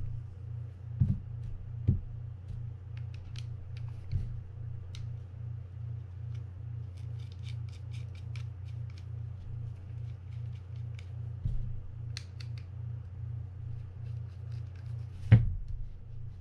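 Small clicks and taps of metal parts against the plastic frame of a Penn 320GTi levelwind reel as it is turned and fitted together by hand, with a few sharper knocks and a louder one near the end. A steady low hum runs underneath.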